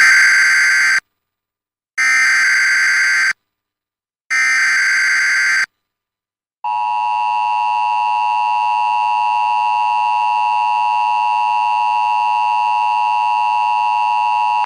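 Emergency Alert System activation: three short bursts of the digital SAME header data, each about a second and a half long with a second's gap between them. About six and a half seconds in comes the steady two-tone EAS attention signal, which holds for about eight seconds.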